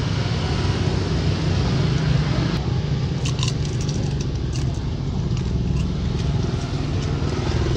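Steady rumble of road traffic. From about three seconds in, a few small clicks and crackles come through over it.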